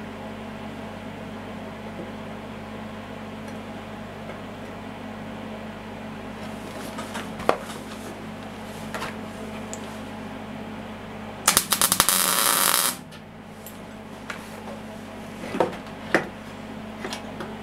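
MIG welding torch striking an arc in one short crackling burst of about a second and a half, about twelve seconds in, opening with a few sputtering starts. Scattered clicks and taps of metal parts on the steel bench come and go over a steady low hum.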